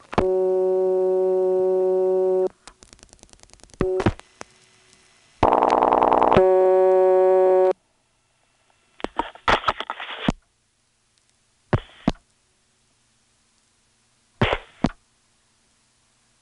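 Analog telephone line sounds: a dial tone that breaks off, a quick run of evenly spaced dial-pulse clicks, a short louder tone, the dial tone again until it cuts off, then scattered clicks and short bursts of noise from the switching equipment on the line.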